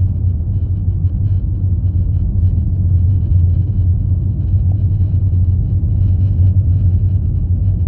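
Toyota Corolla Touring cabin noise while driving: a steady low road rumble, with faint, irregular buzzing rattles (ビビリ音) from somewhere in the car.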